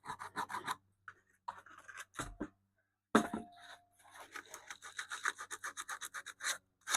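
Sandpaper being rubbed by hand over the wooden radio cabinet in quick back-and-forth strokes, about five a second, stopping for a couple of seconds near the start. Two knocks in the middle, the louder a little past the halfway point.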